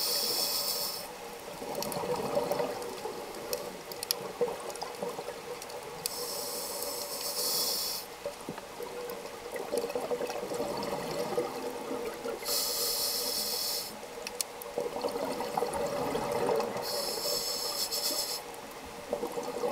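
A scuba diver breathing through a regulator underwater: four hissing inhalations, about every five to six seconds, with bubbling exhalations between them.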